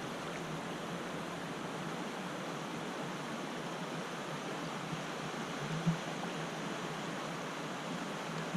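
Steady, even rushing noise with no voices, broken only by a brief soft knock about six seconds in.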